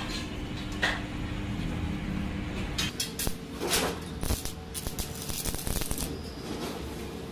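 A sharp knock as a steel tube is set in place on the gate frame. About three seconds in, a stick (arc) welder strikes up and crackles and spits irregularly while the tube's corner joint is welded, over a steady hum.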